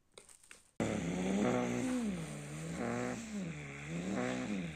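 Lamborghini Urus Performante's twin-turbo V8 being revved, cutting in suddenly about a second in; the engine note climbs and falls back three times.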